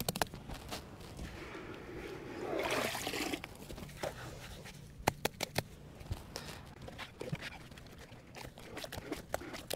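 Hands patting and wiggling handfuls of wet sand onto a sand pile: a run of quick, sharp pats, with a louder wet sloshing stretch about two to three seconds in as saturated sand is scooped from a bucket of water.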